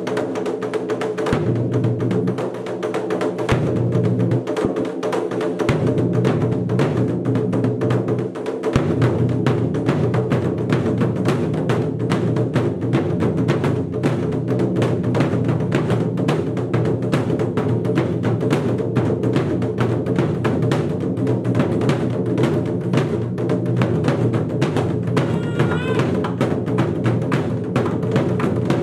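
Japanese taiko drums played in a fast, driving rhythm of rapid strokes, over a sustained low tone.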